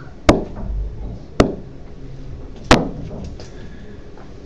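Three sharp clicking taps, a little over a second apart, from a pen or mouse selecting and dragging items on a digital whiteboard.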